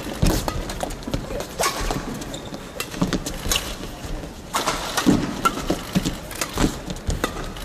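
Badminton rally: rackets striking the shuttlecock again and again, sharp hits about every second or so over the hum of an indoor arena.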